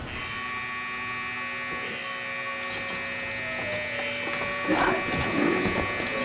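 Steady electrical hum, several level tones held together, with a brief soft sound just before five seconds in.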